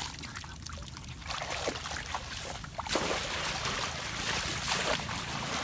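Shallow muddy water sloshing and splashing as a woven bamboo scoop basket is swept through it, busier from about three seconds in, with wind rumbling on the microphone.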